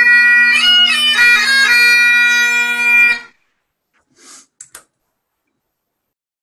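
Great Highland bagpipe playing the closing notes of the tune, the chanter melody over steady drones, then the chanter and drones cut off together about three seconds in. A few faint short knocks follow.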